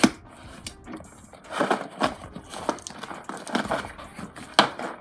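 Brown kraft packing paper crinkling and tearing as it is pulled from a cardboard box, in irregular rustles with a sharp snap at the start and another near the end.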